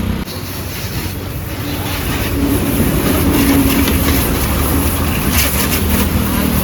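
Pressure washer at a car-wash bay running: a steady motor-and-pump hum under an even hiss of spraying water.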